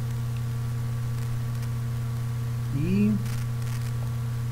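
Steady electrical hum over a hiss: the noise floor of a computer microphone recorded with its noise suppression switched off.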